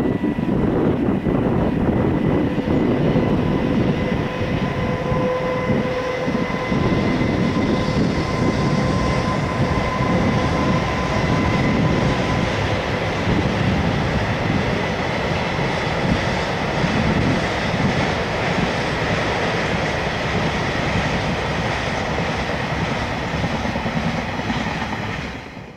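A freight train of tank wagons behind an EH200 electric locomotive rolls across a concrete railway bridge: a steady rumble and clatter of wheels on rail, with a thin steady whine through the first half. It fades out just before the end.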